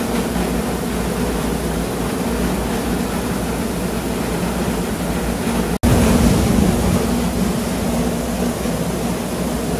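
Combined rice milling machine running steadily while milling a hopper-load of paddy rice: a steady motor hum with a rushing noise over it. The sound cuts out for an instant almost six seconds in and comes back a little louder.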